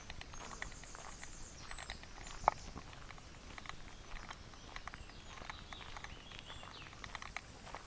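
Footsteps on a gravel dirt track, a run of small irregular ticks with one sharper click about two and a half seconds in, and birds trilling high in the background.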